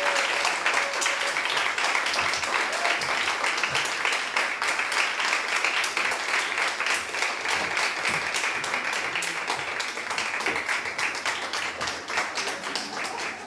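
Audience applauding, many hands clapping in a dense, steady patter that thins to sparser, separate claps near the end.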